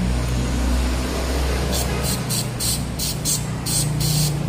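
Aerosol carburetor cleaner sprayed onto a brush cutter's carburetor in a quick series of short hisses, starting a little under two seconds in, over a steady low hum.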